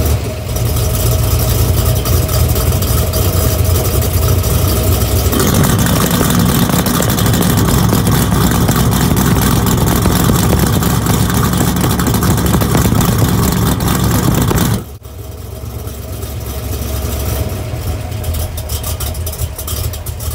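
Boss 302 V8 exhaust running at a vacuum-actuated exhaust cutout. About five seconds in the cutout flap opens and the exhaust note turns rawer and fuller; near fifteen seconds it closes and the sound drops suddenly to a quieter, muffled note.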